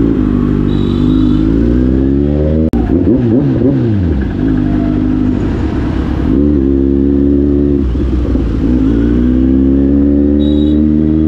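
Kawasaki Z900 inline-four engine revving under acceleration. The revs climb, fall away sharply about three seconds in, hold steady for a while, then climb again over the last few seconds.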